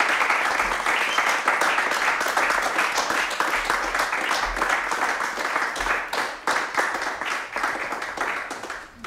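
Small audience applauding after a live song, the clapping thinning out and dying away near the end.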